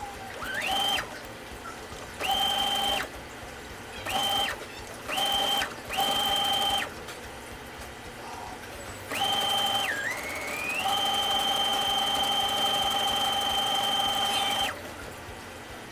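Electric sewing machine running in short stop-start bursts as hair wefts are stitched onto a wig cap. Its motor whine rises as it gets up to speed. Six brief runs are followed by one long steady run of about four seconds, which stops suddenly near the end.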